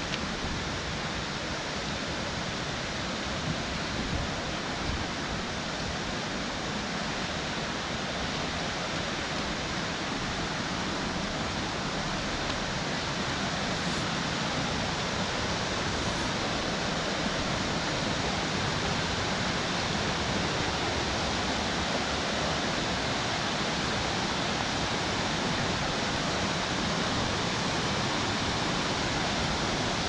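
Steady rushing noise of falling water, slowly getting louder.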